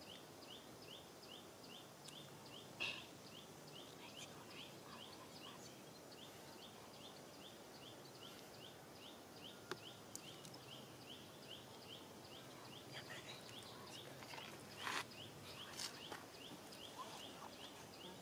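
Quiet outdoor ambience with a short, high chirp repeating about three times a second, breaking off briefly about five seconds in. A few sharp clicks stand out, the loudest about three seconds in and two more near the end.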